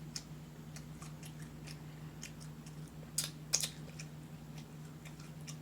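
Close-up chewing with soft wet mouth clicks and lip smacks, two louder smacks a little past halfway, over a steady low hum.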